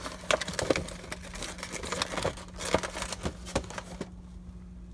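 Plastic blister packaging on a carded action figure crackling and clicking as it is handled and pulled from a cardboard box among other packages, with several sharp knocks; the handling stops about four seconds in. A steady low hum runs underneath.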